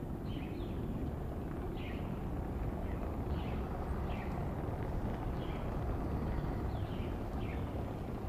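A small bird chirping repeatedly, short high downward notes about once a second, over a steady low rumble of outdoor background noise.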